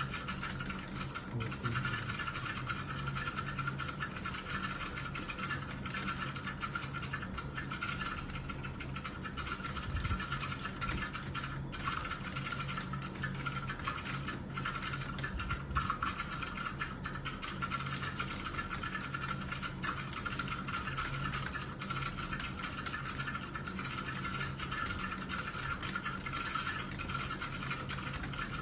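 Fast, continuous typing on a computer keyboard: a dense stream of key clicks with only brief pauses.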